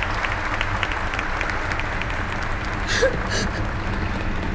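Steady applause from many hands clapping, with two brief sharper sounds about three seconds in.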